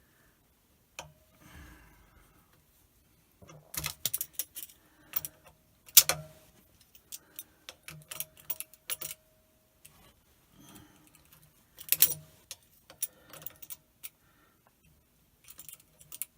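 Vice grips clicking and clinking against the metal drain plug on a water pump as it is worked loose, in irregular bursts of sharp clicks.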